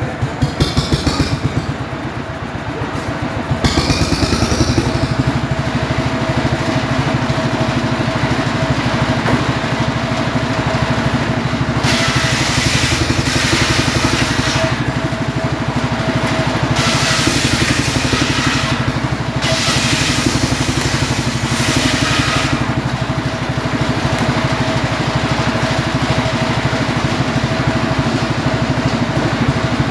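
Homemade engine-driven circular saw running steadily, the engine's even beat heard throughout. From about twelve seconds in, the blade cuts into a firewood log three times in a row, each cut adding a harsh, higher rasp over the engine for two to three seconds.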